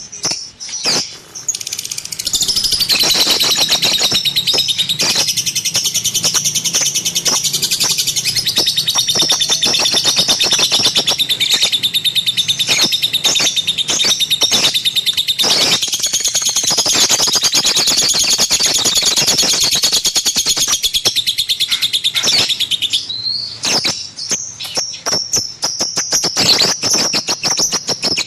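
Lovebird singing: a long, rapid, unbroken high-pitched chatter of chirps. It starts about two seconds in and breaks up into scattered separate chirps near the end.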